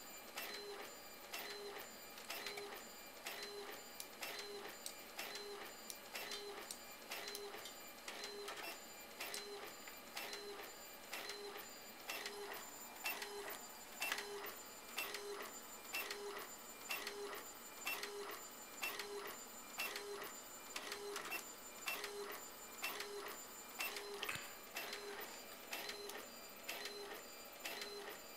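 Epson Stylus 740 inkjet printer printing a photo: the print head carriage shuttles back and forth across the page in a steady rhythm of roughly one and a half strokes a second, with a tick as each pass ends.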